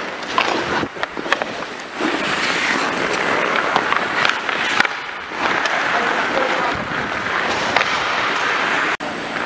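Ice hockey skates scraping and carving on the rink ice, a continuous hiss, with several sharp clacks of sticks and puck scattered through it.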